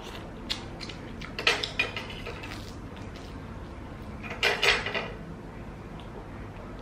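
Metal cutlery clinking and scraping against a pan of food in a few short clusters of clicks.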